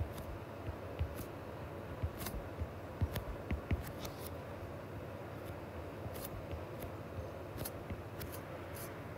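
Stylus tip tapping and sliding on a tablet's glass screen while digits are written: a series of light, irregular clicks, bunched together a couple of seconds in, over faint steady background noise.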